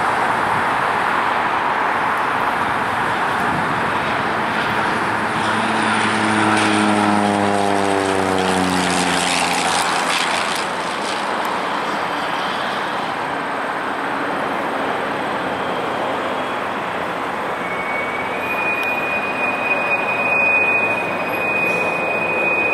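Cessna 208B Caravan's single PT6A turboprop engine and propeller droning as the plane flies low past on its landing approach. The propeller's pitched hum drops steadily in pitch as it goes by, between about five and ten seconds in. A thin steady high whistle starts near the end.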